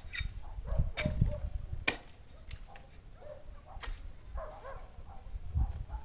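Sticks of firewood knocking together as they are handled and laid on a bonfire pile: a few sharp knocks about one, two and four seconds in, with low thumps of handling between them.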